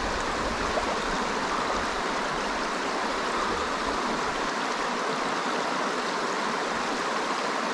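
Creek water flowing steadily, an even rushing hiss with no breaks.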